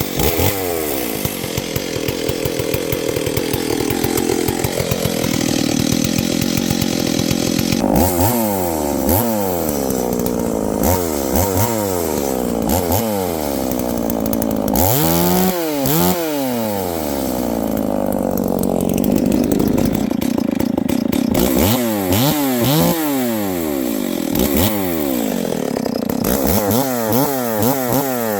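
Large two-stroke chainsaw running near full throttle and cutting wood for the first several seconds, then revved again and again, its pitch climbing and dropping with each blip of the throttle.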